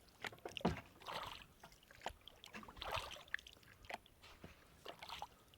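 Kayak paddle strokes: faint, irregular splashes of the blades dipping into the water and dripping, with a few small clicks.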